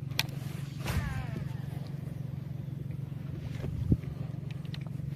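A motor running with a steady low drone. A few sharp clicks and a single thump about four seconds in sound over it.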